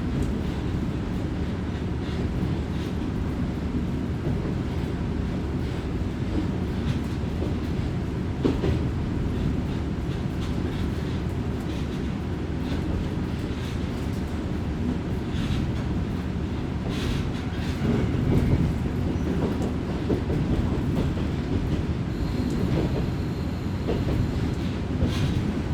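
Running noise heard aboard a diesel railcar: a steady low rumble of engine and wheels on the rails, with scattered sharp clicks of the wheels over rail joints. A thin, faint high whine is present near the end.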